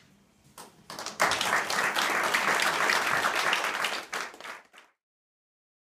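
Audience applauding: a few scattered claps, then a room full of people clapping together from about a second in, fading and cutting off suddenly near the end.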